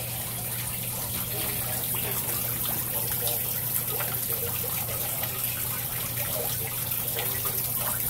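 Water swirling in a homemade vortex fountain's glass cylinder and pouring through the hole in its bottom into the reservoir below: a steady splashing and trickling, with a faint low hum underneath.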